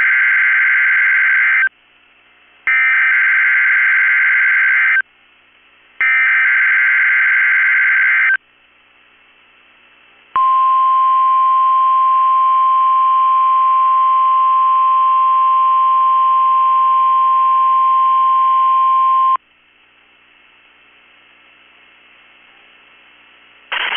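NOAA Weather Radio Emergency Alert System test signal: three bursts of SAME digital header data, each a harsh buzzing screech a little over two seconds long. About ten seconds in, the steady single-pitch 1050 Hz warning alarm tone comes on and holds for about nine seconds, then cuts off.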